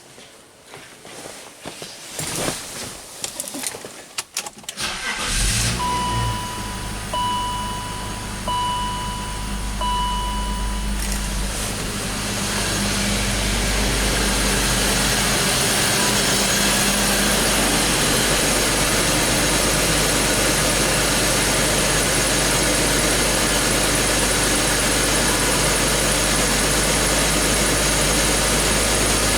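BMW X5's six-cylinder engine cranks and starts about five seconds in, after a few knocks and clicks, then settles into a steady idle. A dashboard warning chime beeps four times just after the start. From about twelve seconds a louder steady rushing noise joins the idle and stays.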